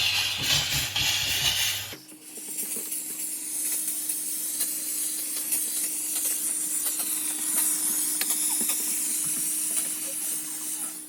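Kitfort KT-555 steam cleaner jetting steam in a steady hiss, with a faint steady hum beneath. About two seconds in the hiss changes abruptly, turning higher and smoother.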